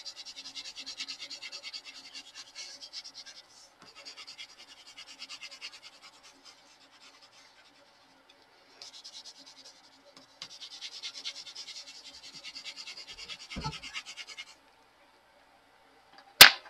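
Coloured pencil scratching across drawing paper in quick back-and-forth shading strokes. The strokes come in several stretches with short pauses between them. A single sharp click sounds near the end.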